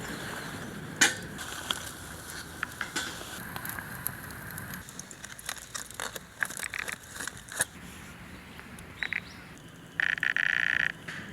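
Campfire crackling, with scattered sharp pops and snaps, one loud snap about a second in. Near the end comes a loud buzzing chirr lasting about a second.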